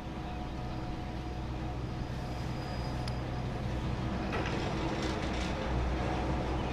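Ski lift running with a steady mechanical hum, getting slowly louder. A little past halfway, a rattling clatter of clicks from the cable and pulleys joins in.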